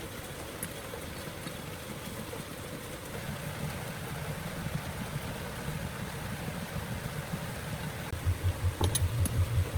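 A steady low hum like a running motor; near the end a regular low pulsing and a couple of sharp clicks come in.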